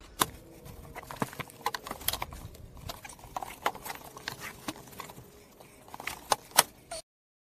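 Irregular clicks and light knocks of multilayer plastic-aluminium pipes in foam insulation sleeves being handled and pushed into place. The sound cuts off suddenly near the end.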